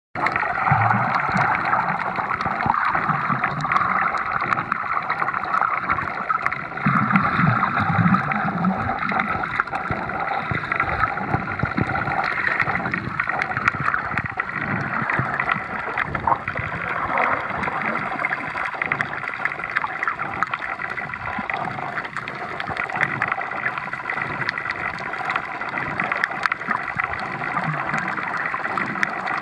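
Underwater ambience picked up by a submerged camera: a steady muffled wash with dense fine crackling throughout, and low gurgling swells in the first few seconds and again around eight seconds in.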